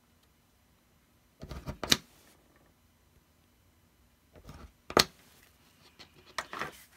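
Japanese screw punch pressed through cardstock: two short crunching pushes, each ending in a sharp click as the bit goes through, about two seconds in and about five seconds in, then a few light taps near the end.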